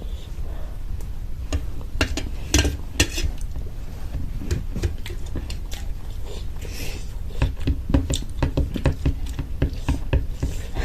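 Dishes and cutlery clinking and tapping irregularly during a meal, over a steady low rumble.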